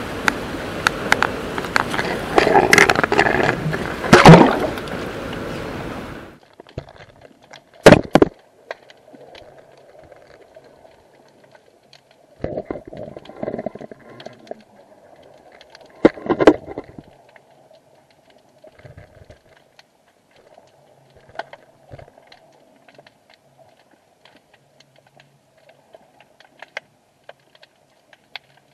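Wind buffeting an action camera's microphone, with clatter from the rig, for about six seconds. Then the sound cuts out suddenly as the camera goes underwater, leaving a faint steady hum broken by scattered clicks and a few heavy muffled knocks of the waterproof case.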